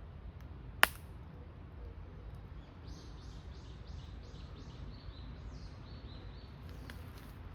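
A bird calling in a run of about ten short, high notes in quick succession, over a steady low rumble. A single sharp click about a second in is the loudest sound.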